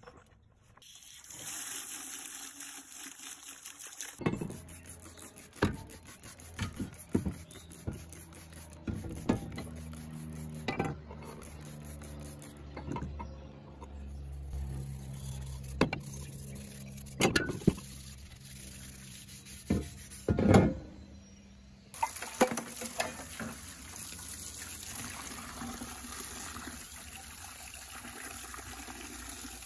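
A rusty steel shovel being scrubbed by hand with a pad, wet sloshing and scattered knocks and scrapes. For roughly the last eight seconds a pressure washer sprays water onto the shovel blade as a steady hiss.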